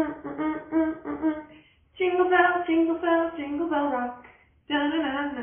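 A woman singing a short sing-song tune in three phrases, her voice holding steady notes, with brief pauses between the phrases.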